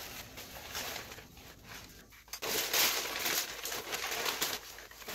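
Butcher paper rustling and crinkling as it is peeled off smoked pork butts, louder and busier from about halfway through.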